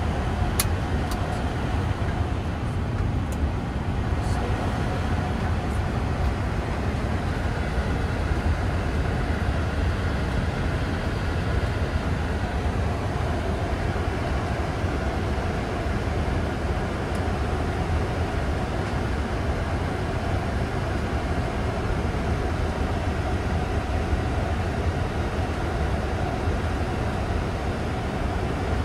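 Steady rumble of airflow and engines in a Boeing 747-8 Freighter's cockpit on final approach, with a faint steady hum above it. A few faint clicks in the first few seconds.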